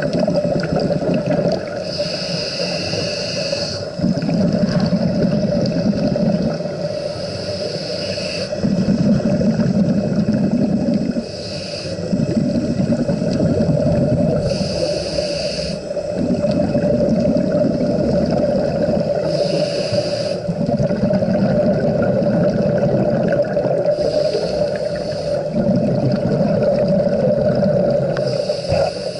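Scuba regulator breathing heard underwater: a short hissing inhale every four to five seconds, each followed by a longer low rumble of exhaled bubbles, over a steady hum.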